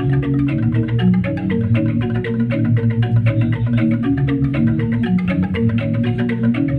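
Balinese gamelan playing a tabuh: bronze metallophones struck in fast, dense runs of notes over sustained low ringing tones.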